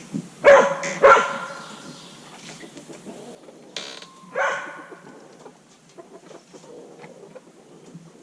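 A dog barks twice, loudly, about half a second apart. Hens cluck and scuffle in the coop after that.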